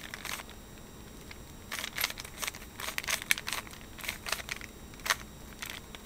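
Rubik's Cube layers being twisted quickly by hand: runs of quick plastic clicks and clacks, with a short pause near the start.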